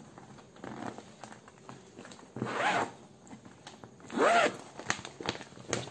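Zipper on a clear plastic comforter storage bag being pulled open in two long strokes, a few seconds apart. Each stroke whirrs up and then down in pitch, with a few small clicks around them.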